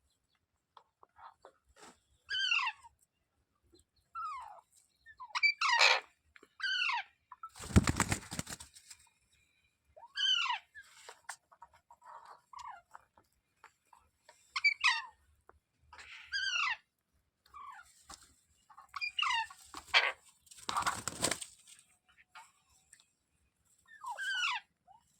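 Pet parrot calling: about a dozen short, harsh calls, each falling in pitch, in irregular groups. Two louder bursts of noise, at about 8 s and 21 s, break in.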